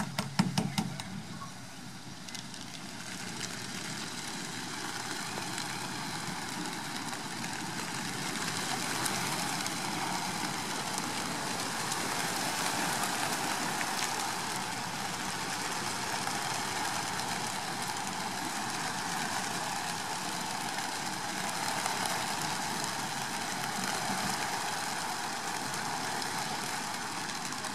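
Thousands of racing pigeons taking off at once, their massed wingbeats a rushing flutter that swells over the first few seconds and holds. A quick clatter of clicks at the start as the transporter's crates open.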